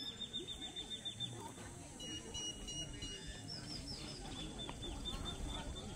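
Faint murmur of spectators' voices, with thin, high chirping calls repeating over it in two runs, the second starting about two seconds in.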